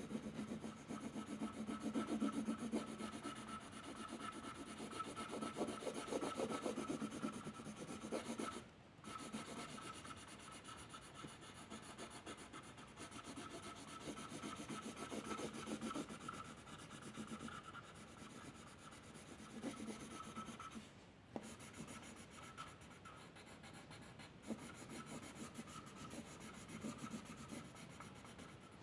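A drawing tool rubbing and scratching across paper in quick repeated strokes, as in shading or colouring in. It pauses briefly three times: near 9 seconds, near 21 seconds and about 24 seconds in.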